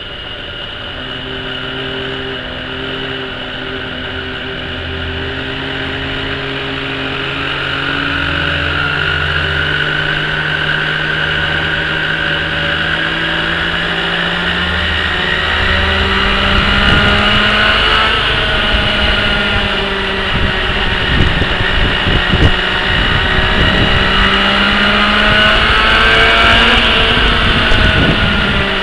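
Thunder Tiger Raptor 50 RC helicopter's .50-size two-stroke glow engine running through a rear exhaust, its pitch and loudness rising steadily as it spools up. About halfway through, a gusty low rumble joins it.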